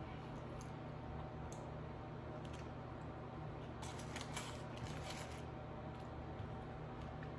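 Close-up handling of food: a few light clicks, then about four seconds in a second and a half of crisp crackling, over a steady low hum.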